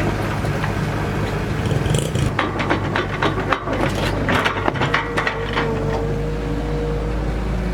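Excavator's engine running steadily, with a run of knocks and clanks from about two to five seconds in and a steady whine after that.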